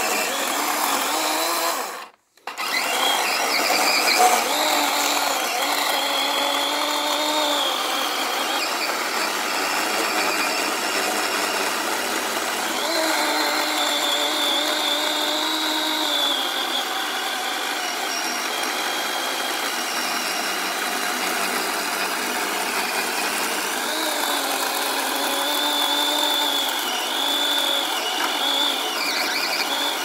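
DeWalt battery-powered chainsaw ripping lengthwise through a wooden beam: a steady electric motor whine over the rasp of the chain in the wood, the pitch wavering as the saw loads up in the cut. The sound cuts out completely for a moment about two seconds in.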